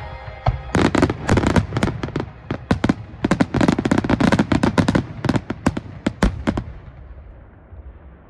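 Aerial fireworks bursting in a rapid barrage of sharp cracks and bangs. The barrage stops about six and a half seconds in, leaving a fading rumble.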